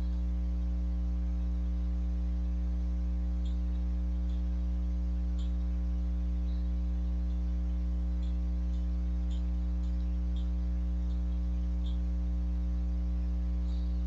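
Steady electrical mains hum with a stack of even overtones, and a dozen or so faint short clicks scattered through it.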